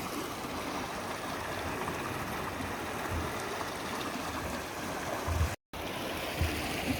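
Sea water washing and splashing over shoreline rocks, a steady hiss, with a few low thumps. The sound cuts out for an instant about five and a half seconds in.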